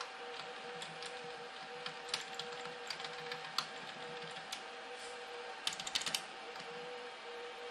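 Scattered clicks of computer input buttons being pressed, with a quick run of several clicks about six seconds in, over a steady two-note hum.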